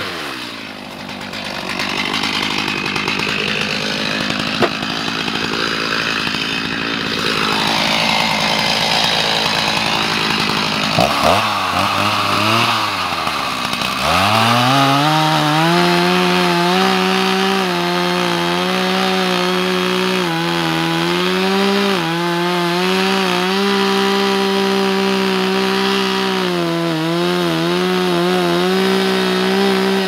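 Stihl chainsaw cutting through a pine log, fitted with a cheap generic chain that the owner found cut poorly and made him work hard. About eleven seconds in the engine drops briefly, then it revs back up and runs at a steady high pitch through the rest of the cut, dipping now and then under load.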